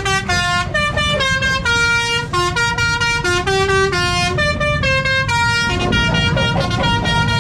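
Decorated bus's musical horn playing a quick tune of stepped notes, the pitch changing several times a second, then settling into held tones near the end, over a low rumble.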